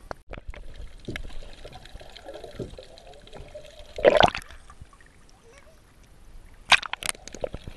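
Seawater sloshing and gurgling around an action camera held at the surface and dipped under while snorkelling, with a loud rush of bubbles about four seconds in and a few sharp splashes near the end.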